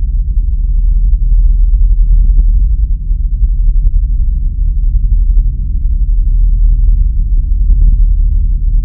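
Loud, deep rumbling drone with a few faint clicks on top; it ends abruptly.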